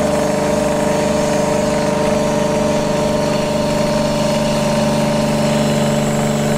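The electric pump unit of a 240-volt AC Rainman watermaker runs with a steady hum as its high-pressure valve is turned gradually to bring the reverse-osmosis membranes up to working pressure.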